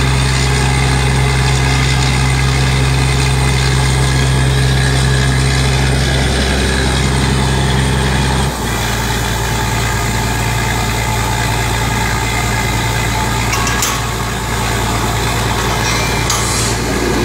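Diesel engine of a truck-mounted water well drilling rig running steadily. About eight seconds in, its note changes abruptly and settles into a lighter, steady hum, with a brief click later on.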